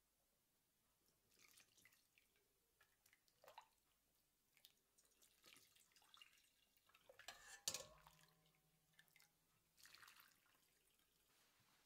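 Metal ladle scooping hot mulled wine from a stainless steel pot and pouring it into a cloth-lined strainer: faint splashes and trickles of liquid several times. Near the three-quarter mark the ladle clinks once against the metal pot, ringing briefly.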